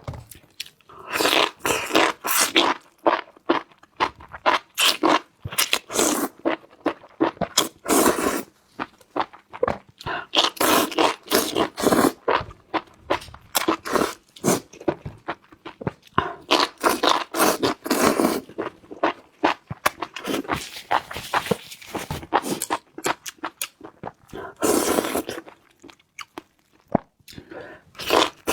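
Close-miked eating: irregular bouts of crunching and chewing, with brief pauses between mouthfuls.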